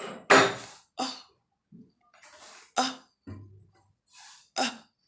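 A voice saying the short-U phonics sound, a clipped "uh", four times with pauses between, with fainter breathy sounds in the gaps.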